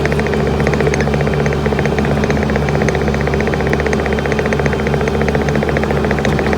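Skid loader engine running loudly and steadily at working speed, with a fast, even firing pulse.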